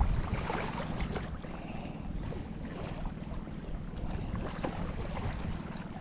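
Wind buffeting the microphone over a steady wash of surf, with a few faint clicks.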